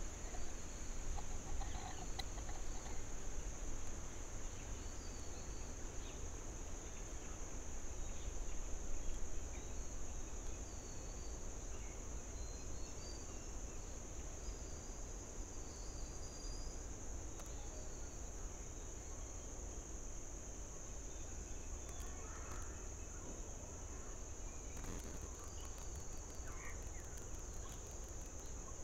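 Forest ambience: a steady, high-pitched insect drone, with a few faint, scattered bird calls over a low rumble.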